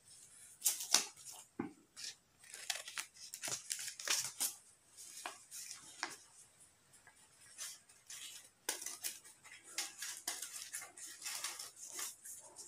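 Scissors cutting through folded paper: a long run of short, irregular snips.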